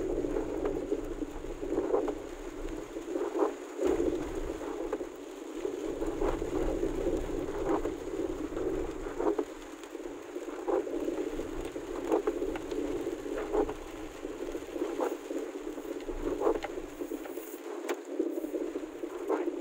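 Rain falling on a car, heard from inside the cabin, with the windshield wipers sweeping at an even pace of about one stroke every one and a half seconds.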